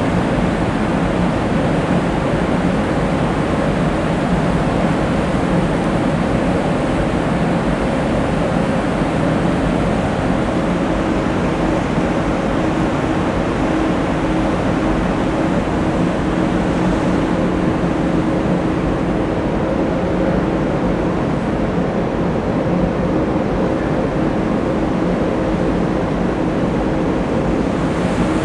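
Ships' engines under way, a steady drone with a constant low hum, over the rushing wash of propeller-churned water. One hum grows steadier and clearer about a third of the way in.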